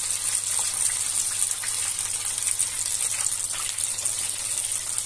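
Breaded chicken drumsticks deep-frying in a pot of hot oil: a steady bubbling sizzle with scattered small crackles.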